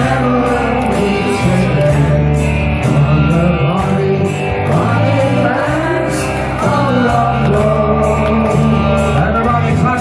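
Loud amplified show music with a steady drum beat of about two hits a second over a bass line.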